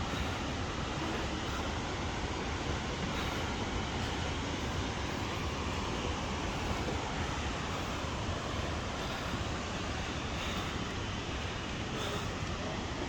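Waterfall and gorge stream rushing: a steady, unbroken noise of falling water.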